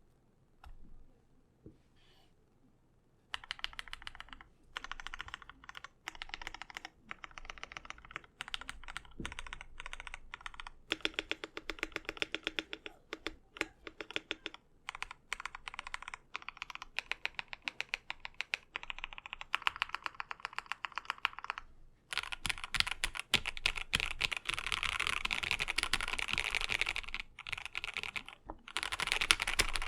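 Typing on a KBD67 Lite mechanical keyboard with Gateron Yellow KS3 linear switches, lubed with Krytox 205g0, on stock stabilizers. A few faint key taps come first, steady typing starts about three seconds in, and it turns faster and louder about two-thirds of the way through.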